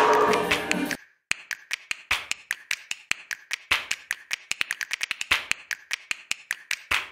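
Rapid, irregular sharp clicks, several a second, with a louder ringing hit lasting about a second at the start.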